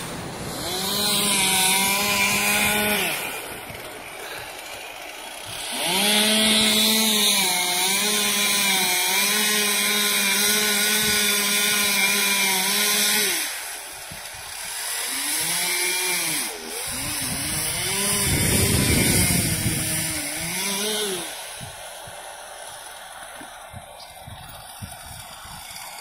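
Chainsaw revving in three bursts, held at high speed for several seconds at a time, with its pitch rising and falling during the last burst. The engine drops back between bursts and is quieter near the end.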